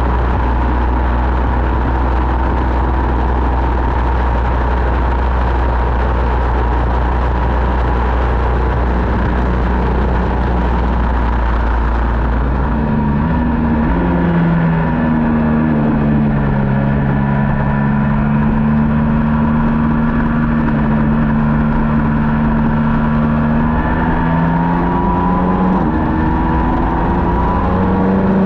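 Middleweight superbike race motorcycle engine running hard at high revs under heavy wind rush. About halfway through the rush drops away as the engine steps down through the gears, holds lower revs for a while, then climbs back up the revs near the end.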